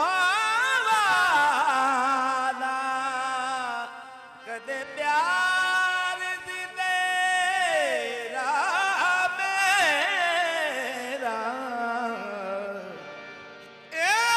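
Qawwali: a male lead singer sings long, high, gliding melismatic runs without clear words, over low sustained harmonium notes. The voice drops away briefly about four seconds in, and glides downward twice later on.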